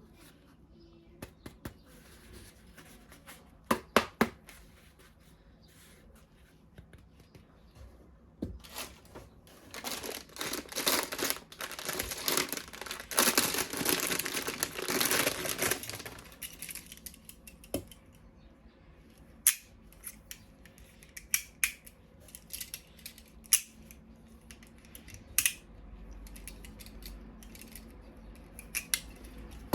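Toy packaging and plastic toy parts being handled. First come a few sharp plastic clicks, then about seven seconds of continuous rustling and cutting or tearing noise, then scattered clicks and taps.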